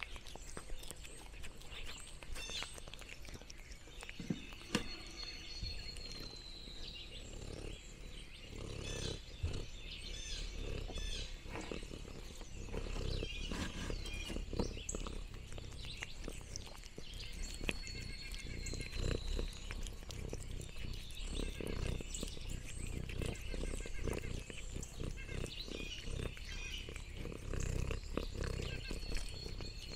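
Orange tabby cat chewing and lip-smacking on sliced meat right at the microphone: a run of irregular clicks and smacks. A faint high whistle comes three times, about twelve seconds apart.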